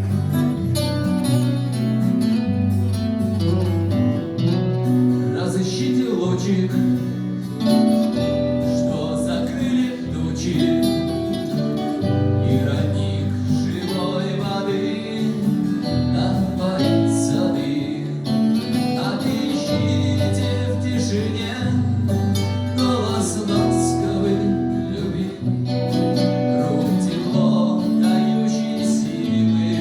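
Acoustic guitar playing a song, with a singing voice at times.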